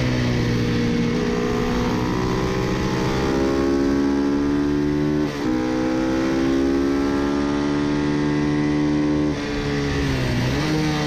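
Single-cylinder four-stroke engine of a Ducati 250 bevel-drive racing motorcycle, heard from onboard at speed. The revs climb steadily, dip sharply and recover about five seconds in, climb again, then fall away for about a second before picking up near the end.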